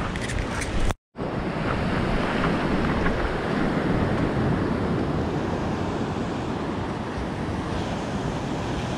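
Ocean surf washing up a sandy beach: a steady rush of breaking waves, with wind on the microphone. The sound cuts out for a split second about a second in.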